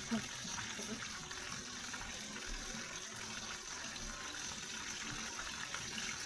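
Oil sizzling steadily in a frying pan as food fries, an even crackling hiss. A brief low knock comes right at the start.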